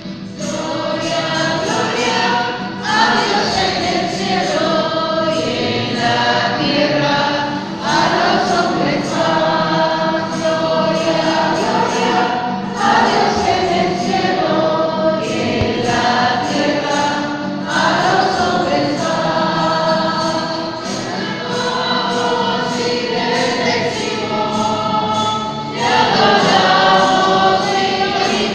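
A choir singing a religious hymn in long sustained phrases, a new phrase starting every few seconds.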